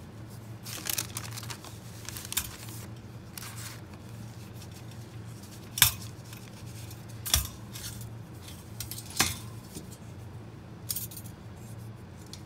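Stainless steel orthodontic instrument cassette being handled and opened, giving several sharp metallic clicks and clinks, the loudest about six seconds in, with softer rustling of a sterile instrument pouch in between.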